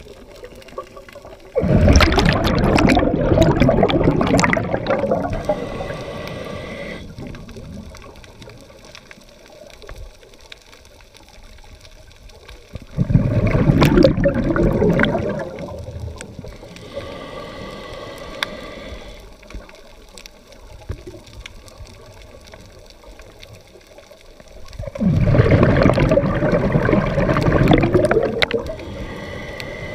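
Scuba regulator breathing heard underwater: three long gurgling bursts of exhaled bubbles about eleven seconds apart, each followed by a fainter hiss of inhalation through the regulator.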